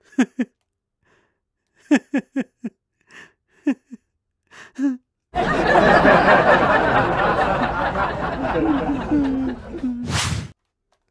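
A man laughing: short chuckles in separate bursts for the first few seconds, then a long, loud fit of laughter. A brief sharp whoosh comes near the end.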